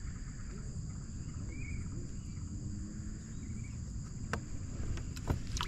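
Steady high-pitched drone of an insect chorus over a low rumble, with a few sharp clicks near the end.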